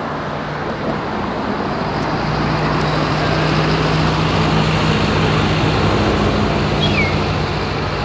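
City street traffic, with the low engine hum of a nearby bus swelling through the middle and easing near the end. There is one short falling chirp near the end.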